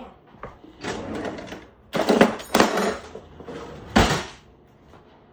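Kitchen things being handled and clattering, in several short rattling stretches, with one sharp knock about four seconds in.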